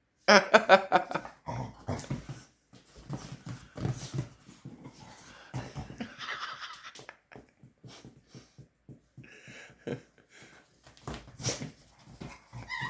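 A chihuahua puppy and a bigger dog play-wrestling: short bursts of dog vocalizing with wheezy, huffing breaths and scuffling. The loudest burst comes in the first second.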